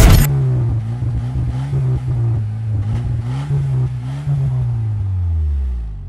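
A motor revving up and down several times, its pitch rising and falling, then dropping lower near the end.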